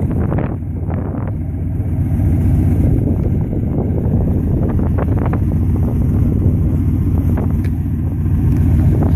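Steady low rumble of wind buffeting the microphone, with a few brief crackles.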